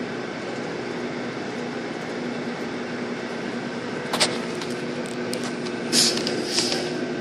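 Steady engine and ventilation hum heard inside a slow-moving bus. A sharp knock comes about four seconds in, and two short hisses about six seconds in.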